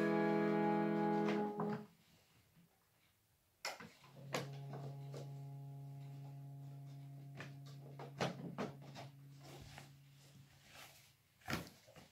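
Harmonium: a full held chord stops short about two seconds in. After a pause and a knock, a softer low reed note sounds steadily for about six seconds, with the wooden clatter and knocks of keys and stops being handled.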